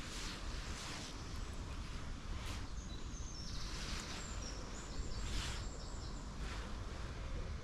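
Outdoor ambience: a steady low rumble of wind on the microphone, with a few brief rushing swells and faint bird calls around the middle.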